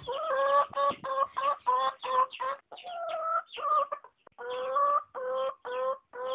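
Chicken clucking in a quick run of short calls, about two or three a second, with a few longer drawn-out calls among them.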